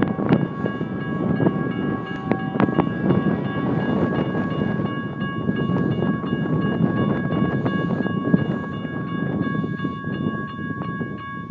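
Train passing close by: a steady low rumble with scattered clanks of the wheels and cars, and several high steady tones held throughout.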